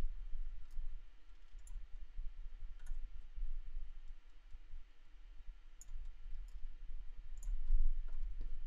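Computer mouse clicking a few times, short faint clicks spread out over a low steady hum.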